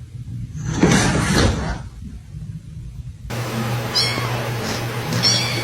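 A cat meowing, loudest about a second in; later a steady low hum with a few short high chirps.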